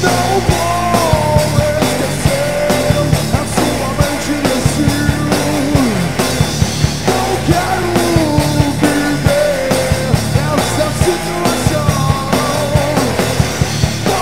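Rock band playing a loud, fast song: drum kit hits, bass and electric guitar, with a melody line gliding over them.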